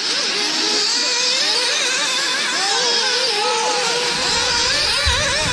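A pack of nitro-powered RC buggies racing, many small glow-fuel engines whining at once, each pitch rising and falling as the cars rev and brake around the track. Low thumps come in near the end.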